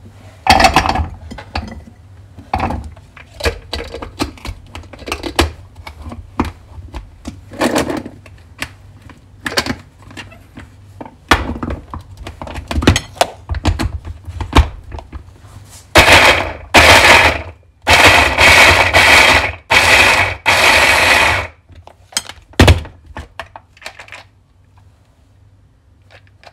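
Scattered knocks and clatters as carrot chunks are handled in a plastic chopper bowl, then an electric mini chopper runs in four short pulses of about a second each, chopping the carrots coarsely. A last knock follows.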